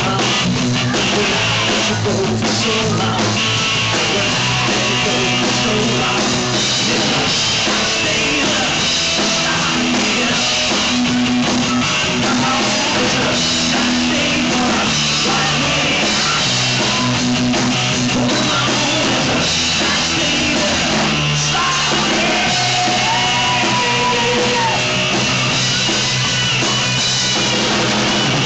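Live rock band playing: electric guitar and drum kit with a singer, continuous throughout.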